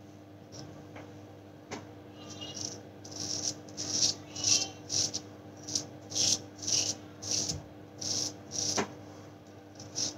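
Straight-razor blade scraping through lathered stubble on the jaw and chin, in a run of short strokes at about two a second, starting about two seconds in.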